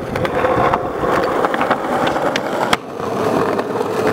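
Skateboard wheels rolling over rough asphalt in a steady grinding rumble. A few sharp clicks are heard, with one louder clack about two thirds of the way in, after which the rumble briefly drops.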